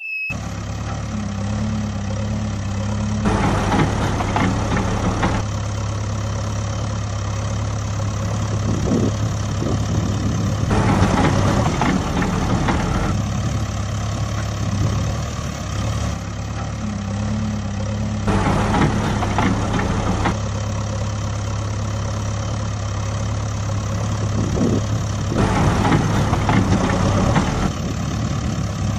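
Engine sound effect of a heavy machine idling with a steady hum, swelling into a louder, rougher stretch of revving about every seven to eight seconds as the same loop repeats.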